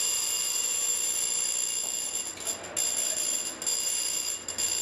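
Emergency exit door alarm set off as the door is pushed open: a steady, high-pitched electronic ringing that starts suddenly and keeps going, with a few brief dips.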